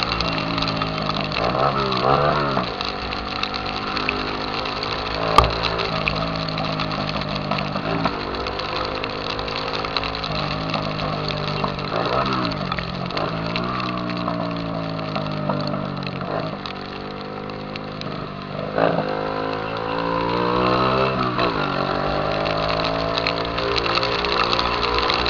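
Honda CG Titan 150 single-cylinder motorcycle engine running loud through a 'Viúva Negra' aftermarket exhaust, revving up and dropping back repeatedly as it pulls away and shifts gears. A single sharp click about five seconds in.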